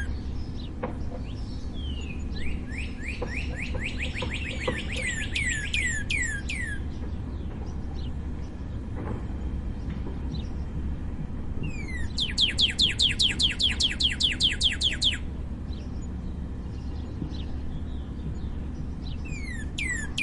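Northern cardinal singing: a run of about a dozen repeated down-slurred whistles, then, after a pause, a louder, faster series of slurred notes, about four a second. A steady low hum sits underneath.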